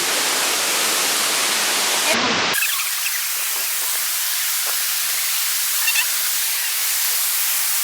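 Steady rush of water falling at Looking Glass Falls. About two and a half seconds in there is an abrupt cut, after which the rush sounds thinner, without its low end.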